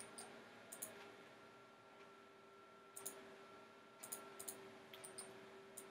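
Computer mouse buttons clicking, single clicks and quick pairs scattered every second or so, over a faint steady hum.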